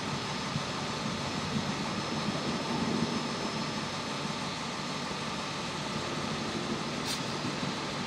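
Steady background hum and hiss, with a brief sharp hiss about seven seconds in.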